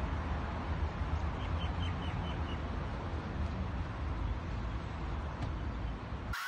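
Outdoor parking-lot ambience: a steady low rumble and hiss. Near the start it is broken by a quick run of about six faint high chirps, around two seconds in.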